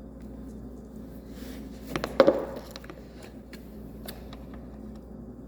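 Handling noise from a power adapter and its cable being connected: scattered light clicks and knocks, with a louder knock and brief scrape about two seconds in.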